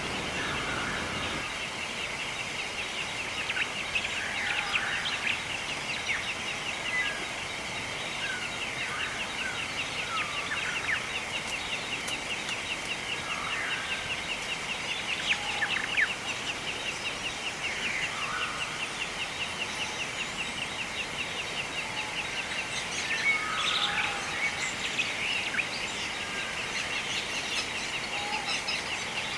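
Outdoor bird chorus: assorted birds chirping and calling in short notes over a continuous, rapid, high-pitched pulsing trill. The chirps bunch up a few seconds in and again about three quarters of the way through.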